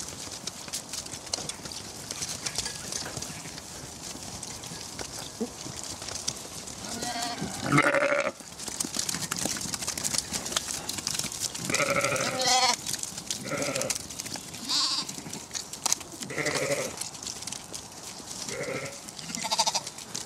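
Zwartbles sheep bleating: about seven separate calls spaced through, over a steady background rustle.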